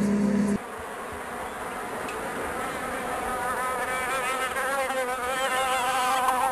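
An insect-like buzz, wavering in pitch and slowly growing louder, after a steady low hum cuts off suddenly under a second in.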